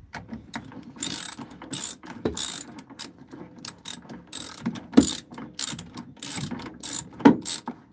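Ratchet wrench clicking in quick, uneven strokes as a bolt on an inboard boat engine's mount is turned.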